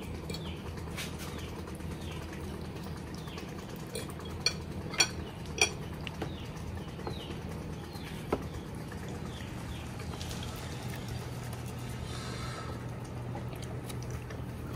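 Small birds chirping in short falling calls, one every half second or so, with a few sharp clinks about four to six seconds in and again near eight seconds, over a steady low hum.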